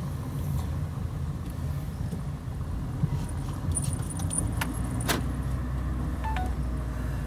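Inside a car driving slowly through a turn: a steady low engine and road rumble, with light metallic jingling and a few sharp clicks in the middle, about four and five seconds in.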